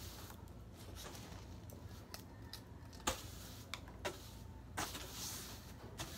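Soft-bristled broom swishing across a wooden floor, sweeping debris toward a dustpan, with several light knocks, the sharpest about three seconds in.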